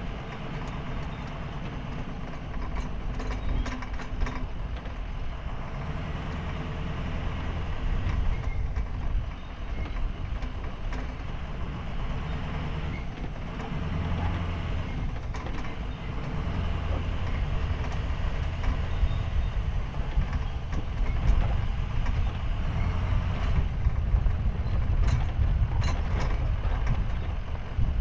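Sportsmobile camper van driving slowly along a rough dirt track, its engine and tyres a steady low rumble that rises and falls with the throttle, heard from a camera on the roof. A few sharp clicks and rattles come through, a couple of times early and again near the end.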